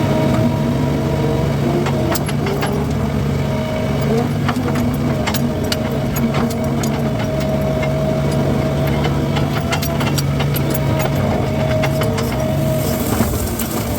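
Skid steer engine running steadily at a constant speed, with many sharp clicks and snaps scattered over it.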